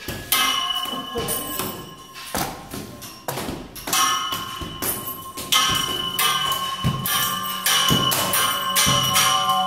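Metal pipe railing struck again and again, each hit ringing on with a bell-like tone. The strikes come irregularly, several a second, and grow louder and denser toward the end.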